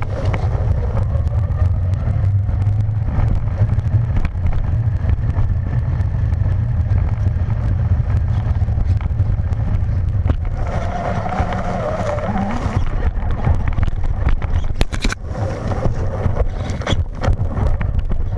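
Traxxas Slash VXL RC truck driving over pavement, heard from a camera strapped to its chassis: a steady low rumble with many rattling knocks from the chassis and wheels. A rising motor whine comes briefly past the middle.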